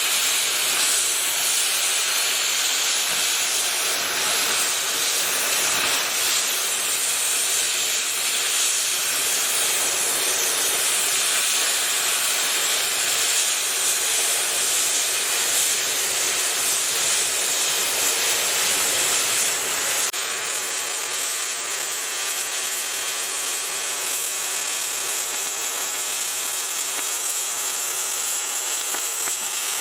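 Oxy-acetylene cutting torch with a number 3 tip hissing steadily as it cuts through 1.25-inch-thick steel plate. It gets a little quieter about two-thirds of the way through.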